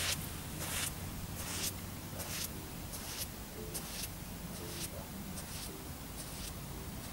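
Footsteps of Ugg sheepskin boots on firm damp sand, a soft gritty crunch about every 0.8 s, growing fainter as the walker moves away. A steady low hum runs underneath.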